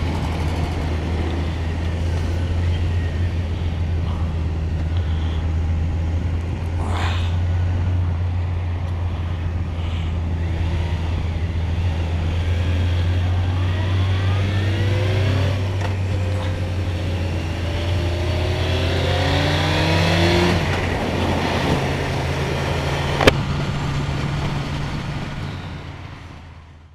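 Motorcycle engine running under way, recorded from a camera on the bike, with a steady hum and road noise. In the second half the engine pitch rises several times as the bike accelerates, then the sound fades out near the end.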